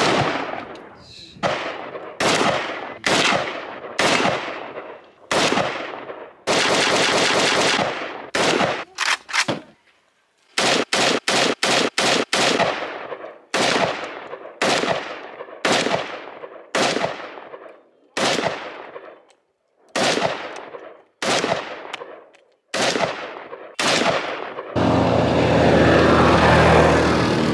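A long series of gunshots from a rifle and a handgun, one or two a second, each with a fading echo. About halfway through, half a dozen shots come in quick succession. Near the end the shots stop and a side-by-side UTV's engine runs steadily as it drives along.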